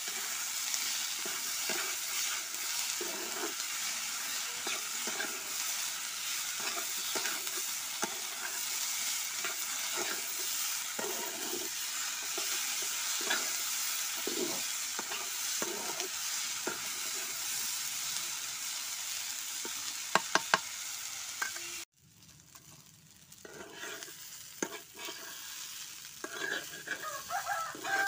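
Vegetables sizzling in hot oil in a kadai while a wooden spatula stirs and scrapes them against the pan. A few sharp clicks come about 20 seconds in, then the sizzle cuts off suddenly and quieter stirring follows, with louder scraping near the end.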